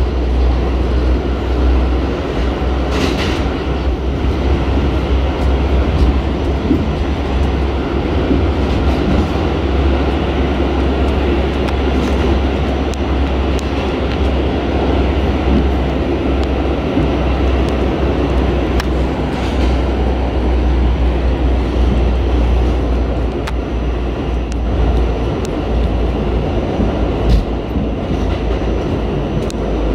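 New York City subway car running at speed, heard from inside the car: a loud, steady rumble of wheels on rail with a few sharp clicks here and there.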